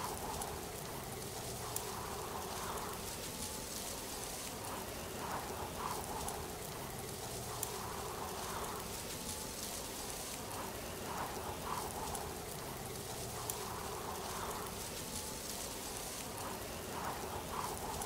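Steady hiss of falling water, like a waterfall or heavy rain, with soft swells every two to three seconds and a few faint ticks.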